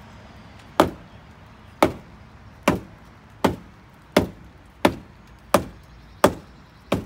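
A shoe with a wine bottle wedged in it is slammed heel-first against a wall nine times in a steady rhythm, a little quicker near the end. Each blow is a sharp whack, meant to drive the cork out of the bottle.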